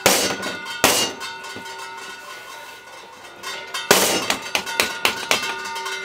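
Bowls clanging: a few sharp strikes, each followed by a ringing tone, with a quicker run of lighter clinks about four to five seconds in.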